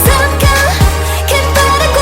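Upbeat K-pop music, instrumental passage with a heavy bass, a steady beat of deep falling drum hits, and synth melody.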